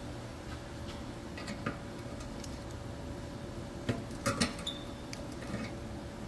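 Metal clicks and clinks of exhaust hanger pliers being fitted onto a rubber exhaust hanger and squeezed to force it off its rod, a few sharp ticks with the loudest cluster about four seconds in, over a steady low hum.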